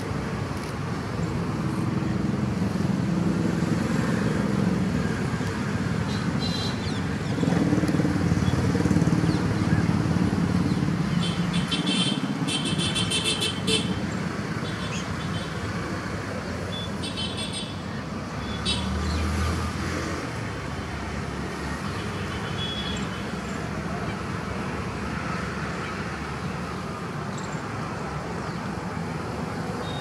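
Steady road traffic noise, swelling for a few seconds as vehicles pass, with a few short, high, rapidly repeated sounds near the middle.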